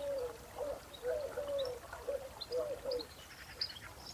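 Birds singing in spring: a string of short, low, gliding calls repeats for about three seconds, with scattered high chirps over it and a brief high trill near the end.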